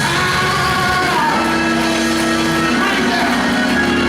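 Live church worship music: a band playing with voices singing long held notes.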